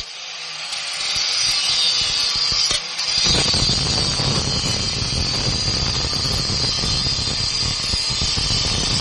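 Power tool, most likely an angle grinder, cutting steadily into the steel shell of a refrigerator compressor: a continuous loud grinding noise with a high whine. It sounds thin for about the first three seconds, then fuller.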